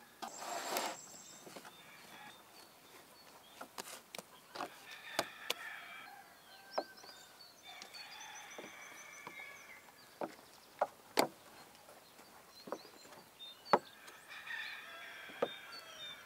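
Chickens calling and clucking in short spells, with scattered sharp knocks and clicks, the loudest a little before the end.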